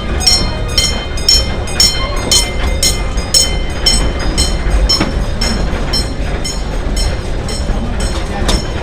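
Amusement park scenic railway train running along its track, heard from aboard: a steady low rumble with quick metallic clicks and ringing clanks, about three a second, from the wheels over the rail joints.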